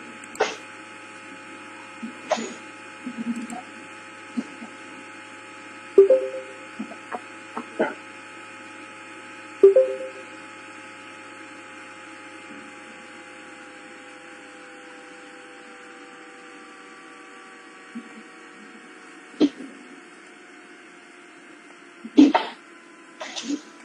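Steady electrical hum with several faint tones slowly sinking in pitch, broken by a handful of sharp clicks and knocks, the loudest about six, ten and twenty-two seconds in.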